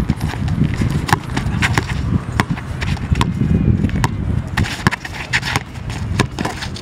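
Basketball dribbled hard on a brick-paved outdoor court, with sneakers scuffing and shuffling on the pavers: irregular sharp knocks over a low steady rumble.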